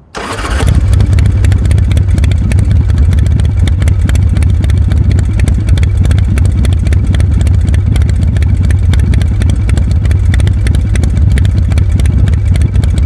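Motorcycle engine sound effect running steadily with rapid firing pulses and a strong low rumble, swelling up over the first second.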